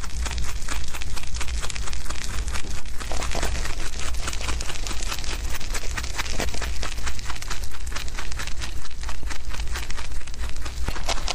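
Young rabbits chewing and tearing fresh grass blades close to the microphone: rapid, irregular crunching clicks with rustling of the leaves, over a steady low hum.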